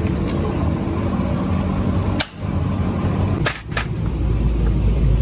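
Workshop noise of car-repair work on the radiator: a steady din with two sharp metallic clicks about three and a half seconds in. The sound drops out briefly twice.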